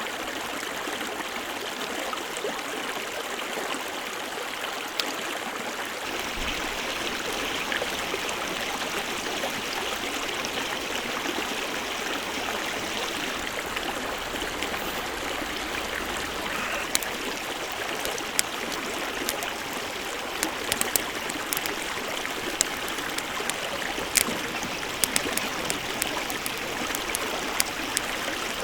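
Steady rush of flowing water, like a stream, with scattered sharp pops that start a little past halfway and come thickest near the end.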